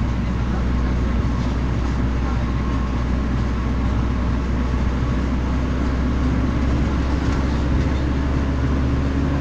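A vehicle's engine running steadily with road noise as it climbs a hill, heard from on board.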